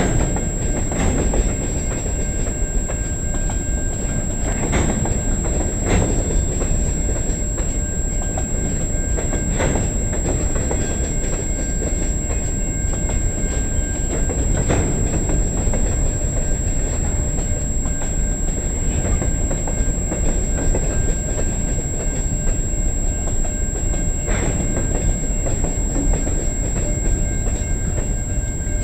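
CN freight train's covered hopper cars rolling past on jointed track: a steady rumble of wheels on rail with occasional clanks every few seconds.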